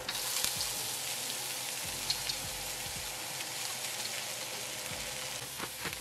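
Mixed vegetables hitting hot oil in a wok with frying onions: a loud, steady sizzle that starts suddenly as they land.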